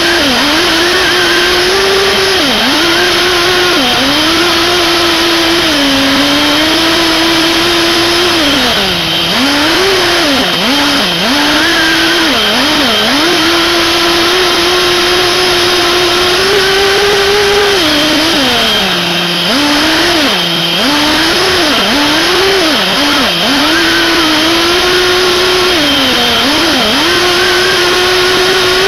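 SH PT21-P3 nitro glow engine of a 1/8-scale buggy, heard up close from on the car, revving up and down with the throttle. Its buzzing pitch holds steady for stretches and then drops and climbs again in quick succession several times, most busily in the middle. A steady high whine runs underneath.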